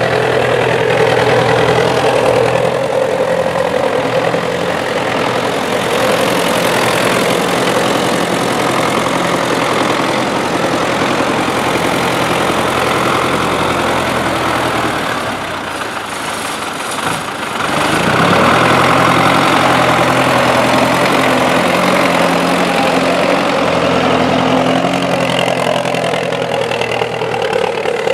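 MTZ-82.1 tractor's four-cylinder diesel engine running steadily under load while pulling a mounted three-furrow plough through wet soil. A little past halfway the engine note sags briefly, then picks back up.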